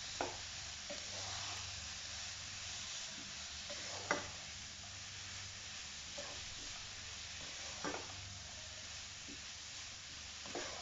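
Shredded vegetables and chicken frying in oil in a non-stick wok with a steady sizzle, tossed with a slotted spatula. The spatula knocks against the pan a few times, about every four seconds.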